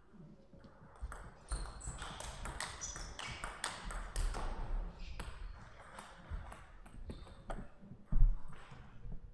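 Table tennis rally: the plastic ball clicks off the rackets and the table in a quick exchange of hits. About 8 seconds in, the rally ends and there is one loud thump.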